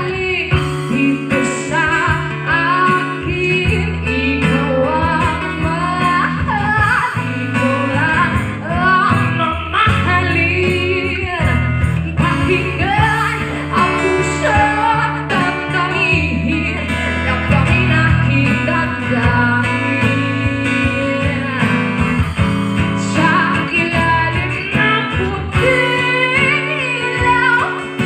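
Live band: a woman singing a melody into a microphone, with guitar and a steady low bass line underneath.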